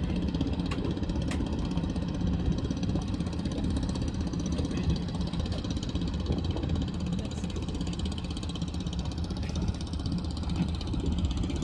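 A boat engine running steadily, heard from on board, with wind and water noise.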